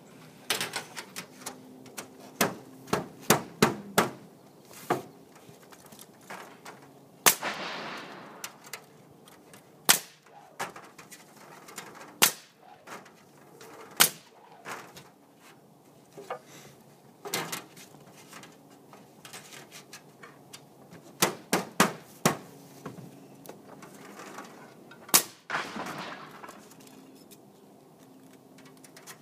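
Aluminum metal roof shingles being fastened down with clips: irregular sharp metallic strikes, some in quick clusters. Twice there is a rushing noise about a second long.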